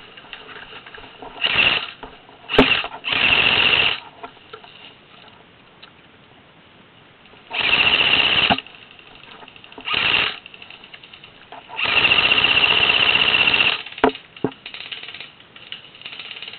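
Airsoft guns firing on full auto in about six bursts of rapid, even rattling, from a short snap to the longest of nearly two seconds near the end, with quiet stretches between.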